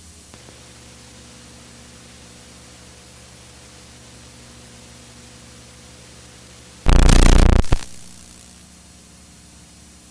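Steady VHS tape hiss with a low hum underneath, broken about seven seconds in by a loud burst of noise lasting about a second that then dies away.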